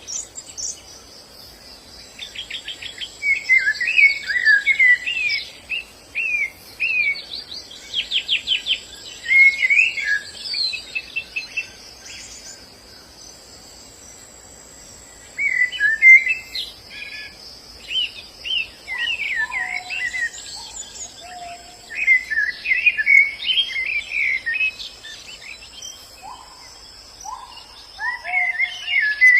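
White-eyes (pleci, Zosterops) singing: bursts of quick, high twittering and chirping phrases, with a pause of a few seconds near the middle. A steady high insect-like buzz runs underneath. In the second half, lower short falling call notes repeat in small groups.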